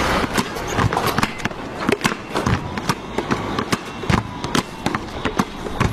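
Basketball game on a hardwood gym floor: a ball bouncing and players' shoes knocking on the boards in irregular sharp knocks, with a few brief sneaker squeaks, over a steady background of crowd noise.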